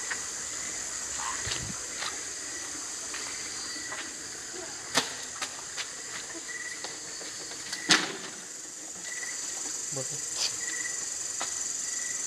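Crickets and other night insects making a steady high-pitched chirring, with short chirps repeating every second or so. Two sharp knocks stand out, about five and eight seconds in.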